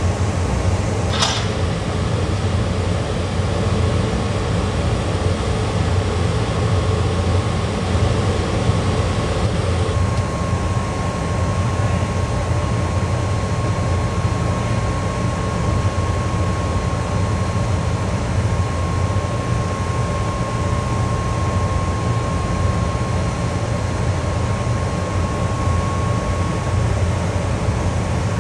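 JNR Class EF58 electric locomotive's cooling blowers running with a steady fan-like hum and a thin steady whine that grows stronger about ten seconds in. A brief rising squeal sounds about a second in.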